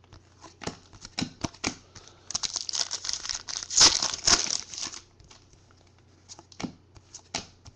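A few light card clicks, then a 2012 Gridiron football card pack's foil wrapper torn open and crinkled for about two and a half seconds, loudest near the middle, followed by a few more clicks of cards being handled.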